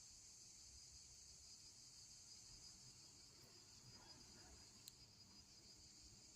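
Faint, steady chorus of crickets, a continuous high-pitched trill, with a single sharp click about five seconds in.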